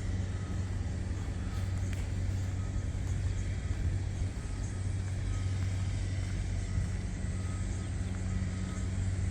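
Combine harvester engine running at a steady low hum, with a faint high beep repeating at short, even intervals.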